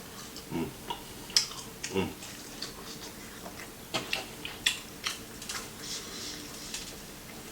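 Close-up chewing and crunching of a crispy fried egg roll: irregular sharp crunches and mouth clicks, with a couple of short low hums of enjoyment in the first two seconds.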